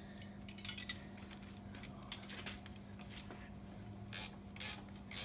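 Ratchet and socket working a coolant temperature sensor loose from a diesel engine block: a few short metallic clicks and rattles, three of them close together near the end, over a steady low hum.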